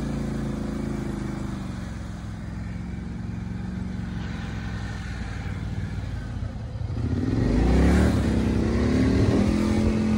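Polaris 850 ATV engine running steadily, then revving up about seven seconds in, its pitch rising, and running louder under throttle.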